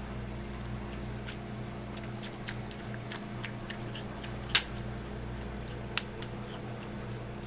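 A metal melon baller scraping and scooping seeds out of a halved melon: soft wet scrapes and scattered small clicks, with two sharper clicks, one past the middle and one a second and a half later. A steady low hum runs underneath.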